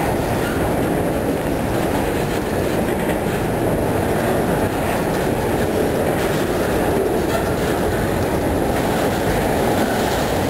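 CSX freight train of autorack cars rolling past: a steady, unbroken rumble of steel wheels on rail.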